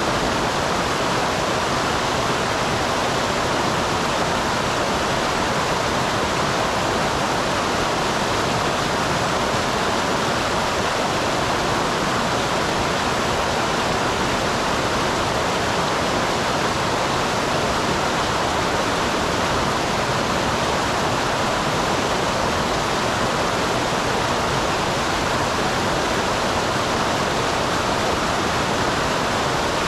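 Small waterfall in a mountain stream: a steady, unbroken rush of falling water.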